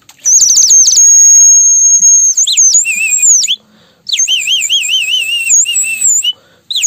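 Bird-shaped water whistle filled with water, blown in chirping, warbling runs like a sparrow chirping. Quick falling chirps give way to a long high steady whistle, then, after a short break, a fast wavering trill.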